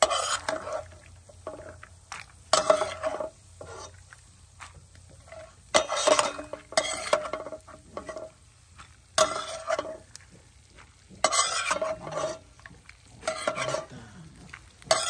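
A spoon stirring and scraping golden-browned peanuts in a pan of hot oil, in short irregular strokes every second or two. A light sizzle of frying runs under the strokes.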